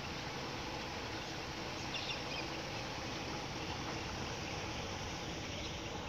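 Steady, faint riverside outdoor background hiss, with a few faint, short high bird chirps about two seconds in.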